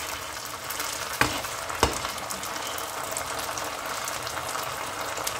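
Ginger, mustard and chicken bouillon frying in oil in a nonstick pan: a steady sizzle, with two sharp knocks a little over a second in, about half a second apart.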